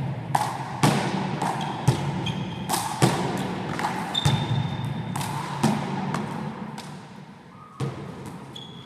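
One-wall handball rally: a hard rubber ball smacked by hand and bouncing off the wall and floor, a sharp echoing smack about every half second, with short sneaker squeaks on the hall floor. The hits stop about six seconds in, leaving a lull with one more knock near the end.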